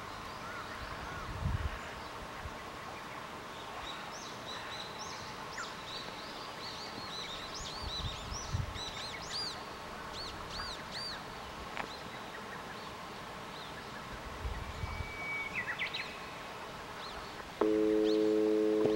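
Small birds chirping repeatedly in a quiet outdoor setting, with a few low thumps. Near the end a loud, steady chord of low tones starts suddenly and holds for over a second.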